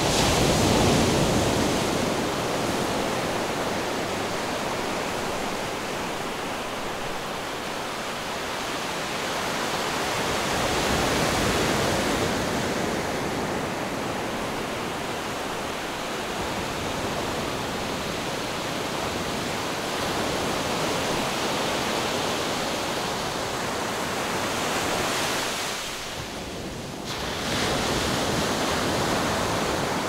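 Gentle Black Sea waves breaking and washing ashore, a steady rush of surf that swells and eases every several seconds. It is loudest about a second in, with a brief lull shortly before the end.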